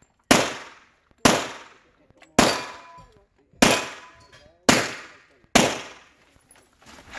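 Six pistol shots, about a second apart, each followed by a short echoing tail.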